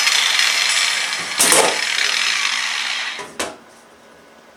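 A power tool working on the steel go-kart frame: a loud, steady hiss that cuts off about three seconds in, with a sharp metallic knock about a second and a half in and another as it stops.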